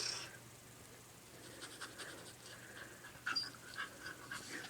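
Faint dog panting in short, irregular breaths.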